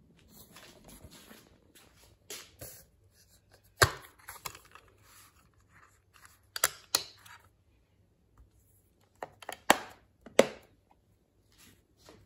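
Black plastic DVD case being handled and opened, with soft rustling and then a string of sharp plastic clicks and snaps as the disc is pressed off the case's centre hub and lifted out.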